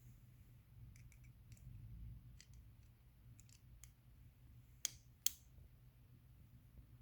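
Scattered faint clicks, then two sharp metallic clicks close together about five seconds in: a flat-head screwdriver prying at the locking clamp on a garage door opener belt's spring-loaded tension mechanism.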